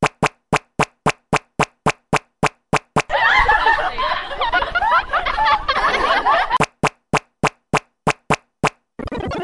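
A rapid run of sharp, evenly spaced clicks, about four or five a second. About three seconds in, the clicks give way to a few seconds of high, quick snickering laughter, then start again.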